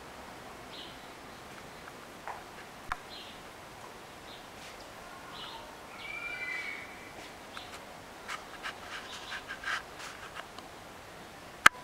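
Birds chirping, with a warbling call about six seconds in and a quick run of short clicking notes after it. A single sharp click near the end is the loudest sound.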